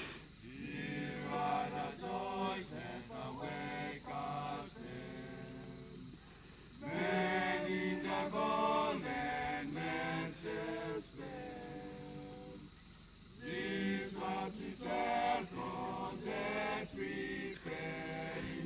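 A group of Kokoda Track porters singing a song together a cappella, in three sung stretches with two brief pauses between them.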